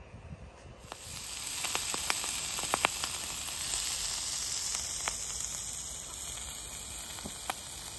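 Bacon sizzling in a frying pan: a steady hiss with scattered pops and crackles, starting about a second in.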